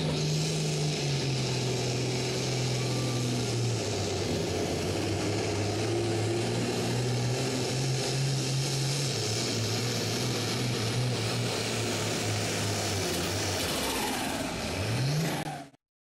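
An International Harvester pulling tractor's diesel engine running flat out under load while dragging a weight-transfer sled. Its pitch sags slowly as the load builds. Near the end the revs drop, then rise briefly before the sound cuts off suddenly.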